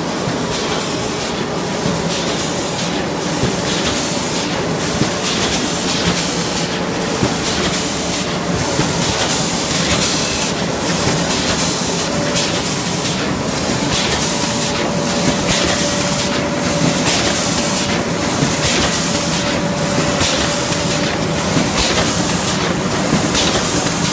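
Automatic paper cone making machine running: steady mechanical clatter with repeating hiss pulses roughly every half second from its pneumatic cylinders as it cycles. A steady hum joins about halfway through.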